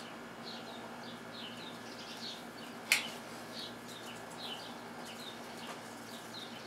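Small birds chirping over and over, about two chirps a second. About three seconds in, a single sharp click from a kitchen knife cutting through a potato slice and striking the plate.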